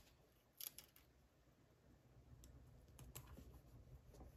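Near silence with a few faint clicks and light handling noises of paper and stationery, about a second in and again around the third second.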